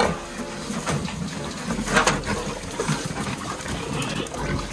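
Fattening pigs at a feed trough, grunting and eating noisily, with irregular short knocks and clatters.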